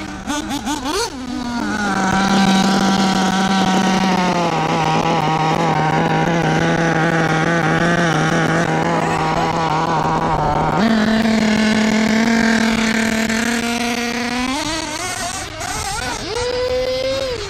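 O.S. Speed B21 .21 two-stroke nitro engine with an Adam Drake tune in a Kyosho MP10 1/8 buggy, running at a steady, even speed with a small dip in pitch and then a step up, before revving up sharply near the end.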